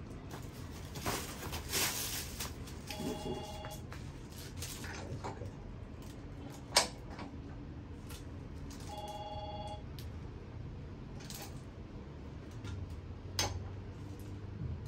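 Clicks and clatter of tools and parts being handled during assembly, with one sharp click about seven seconds in. Two short electronic beeps, each a pair of steady notes, sound about six seconds apart.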